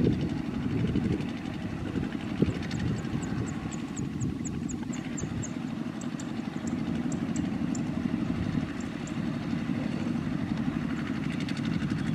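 Several two-wheel walking tractors (power tillers) with single-cylinder diesel engines running together as they pull trailers loaded with rice sacks, a steady low rumbling chug.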